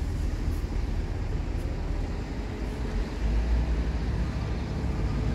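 Low steady rumble of a diesel train approaching slowly in the distance, mixed with wind on the microphone.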